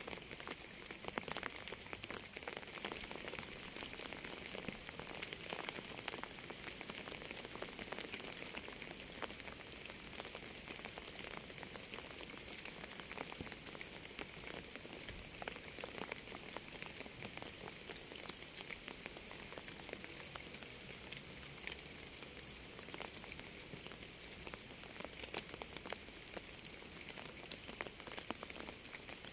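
Steady rain: an even hiss with many separate drops ticking through it.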